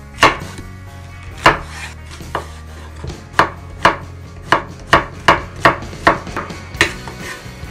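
Chef's knife slicing a zucchini into rounds on a wooden cutting board: about a dozen sharp knocks of the blade on the board, slow at first, then about two a second.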